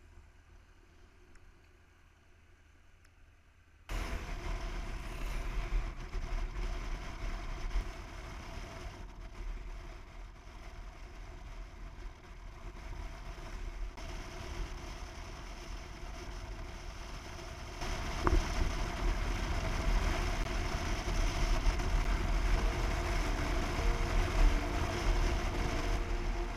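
Motorcycle on the move: wind rushing over the bike-mounted camera's microphone with engine noise beneath. It cuts in suddenly about four seconds in after near quiet and gets louder again about eighteen seconds in.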